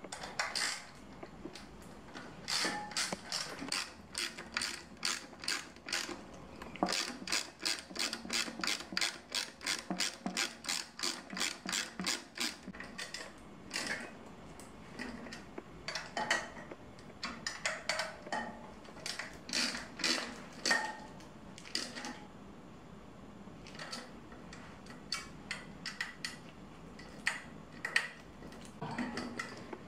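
Ratchet wrench clicking in quick runs of about four clicks a second, with short pauses between runs, as bolts are tightened.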